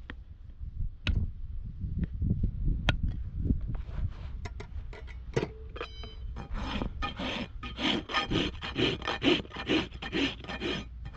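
Hoof nippers give a few sharp snips on an overgrown horse hoof. From about six seconds in, a farrier's rasp files the hoof wall in quick rhythmic back-and-forth strokes, about three a second.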